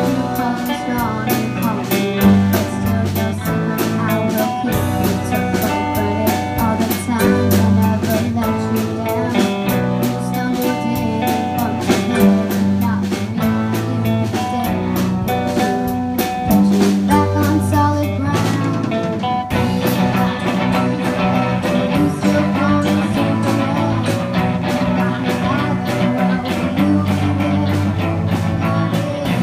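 Amateur rock band playing live: drum kit, electric bass and electric guitars, with a girl singing. The music breaks off abruptly and carries straight on about twenty seconds in.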